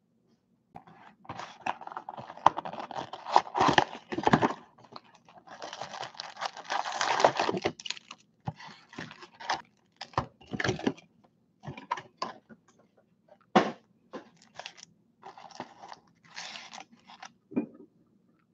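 Foil-wrapped packs of 2019 Topps Chrome baseball cards crinkling and rustling as they are pulled from their cardboard box and stacked on a table. The sound comes in irregular bursts, with a few sharp knocks.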